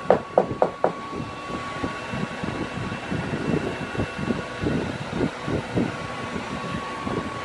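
Quick tapping on the liquid-vinyl patch of a vinyl seat cover, about four taps a second, flattening it and working out bubbles; the tapping stops about a second in. A steady whirring with a faint high whine and irregular soft knocks follows.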